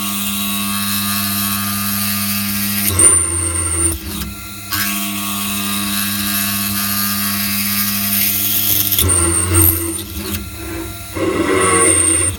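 A CNC machine spindle driving a 6 mm drill into aluminium in a peck-drilling cycle. A steady machine tone is broken by short pauses, about 3 seconds in and again near 9 seconds, as the drill retracts to clear chips and plunges again.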